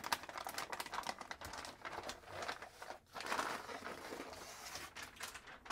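Plastic anti-static bag crinkling and rustling as a motherboard is pulled out of it. The crackling runs almost without a break, with one short pause about three seconds in.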